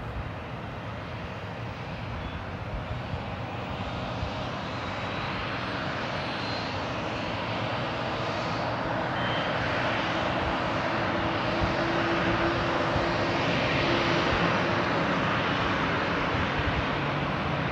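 Jet engines of an Aer Lingus Airbus airliner running, their noise growing steadily louder, with a low steady hum coming in partway through.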